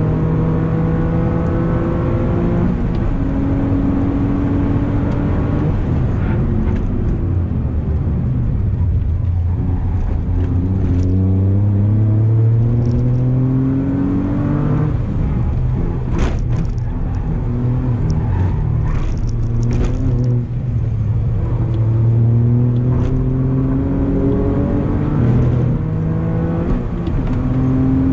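Toyota GR Yaris's turbocharged 1.6-litre three-cylinder engine heard from inside the cabin, pulling hard on track. The revs climb and then drop back at each gear change. There is a calmer stretch without climbing revs about a third of the way in, then it pulls up through the gears again, with steady tyre and road noise underneath.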